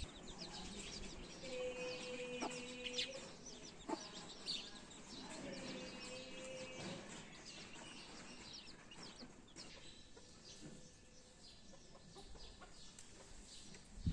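Chicks peeping in a stream of short, high cheeps, with an adult chicken giving two drawn-out, steady-pitched calls, about two and six seconds in.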